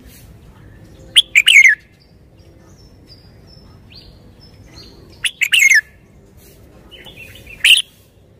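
Red-whiskered bulbul singing: three short, loud, quick warbled phrases, about a second in, about five seconds in and near the end, with faint high notes between them.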